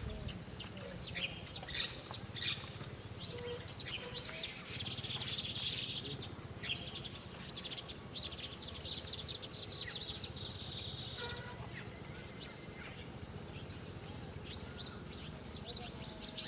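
Small birds chirping, a rapid run of short high-pitched chirps. The chirps come in two busy spells, about four seconds in and again around nine to eleven seconds, and are sparser in between and after.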